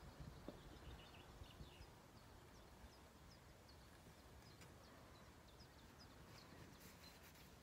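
Near silence: quiet outdoor ambience with a faint low rumble that fades over the first second or two, and a run of faint, short, high chirps a few times a second through the middle.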